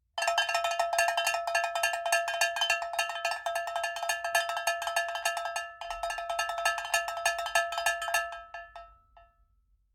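A metal bell struck rapidly and over and over, ringing at one fixed set of pitches. It breaks off briefly about six seconds in, resumes, then stops and rings out, fading away.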